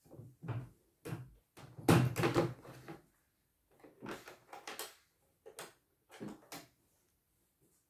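Plastic embroidery hoop of a CNY E900 embroidery machine being unclipped and lifted off the embroidery unit's carriage arm: a run of irregular plastic knocks and clicks, the loudest clatter about two seconds in, then a few lighter knocks.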